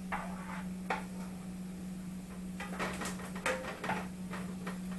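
A few short clinks and knocks of a utensil against a pan of sautéing onions, over a steady low hum.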